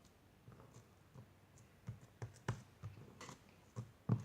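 Homemade slime being squeezed and handled in the hands, giving scattered faint clicks and small pops, more of them in the second half.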